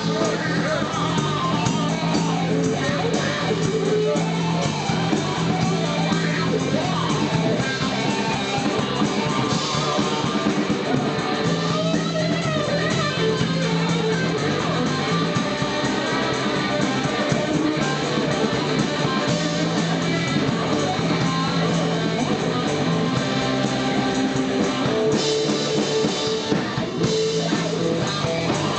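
Blues band music with guitar to the fore over a steady, repeating bass line.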